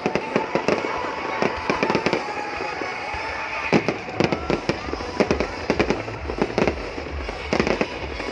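Aerial fireworks going off in quick succession, a dense run of sharp bangs and crackles. A low, pulsing music beat comes in about halfway through.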